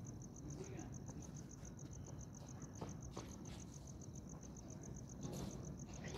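Insect chirping: a steady run of short, even, high-pitched pulses at about eight a second, with two faint knocks about three seconds in.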